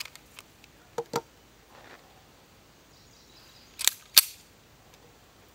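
Metal clicks from a Beretta M9 pistol being handled: a pair of light clicks about a second in, then two sharp, louder clacks about a third of a second apart near the four-second mark as the slide is pulled back and let go to chamber a round.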